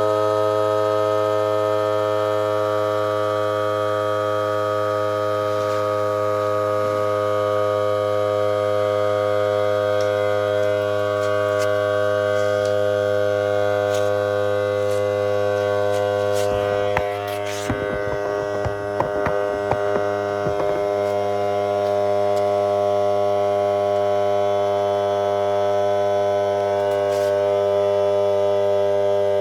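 Electric air compressor running with a loud, steady hum while inflating a bicycle tire. A short stretch of clicks and knocks comes about two-thirds of the way through, then the steady hum continues.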